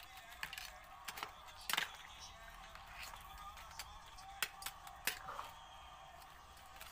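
Metal ladle knocking and scraping against a steel pot while crab pieces in thick gravy are stirred: a run of sharp, irregular clanks, the loudest about two seconds in. Faint background music underneath.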